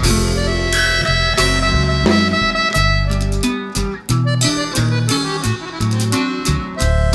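Instrumental background music: held melody notes over a bass line that steps from note to note, with a steady beat.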